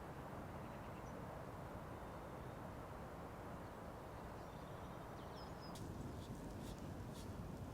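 Steady outdoor wind noise with a faint bird chirp about five seconds in, then a scattering of light ticks from about six seconds in.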